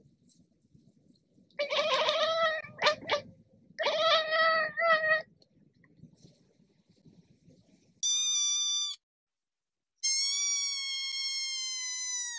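An adult cat gives two short bouts of choppy meowing, about two and four seconds in. Then a kitten meows twice, higher-pitched: a brief meow, then a longer one that sinks slightly in pitch.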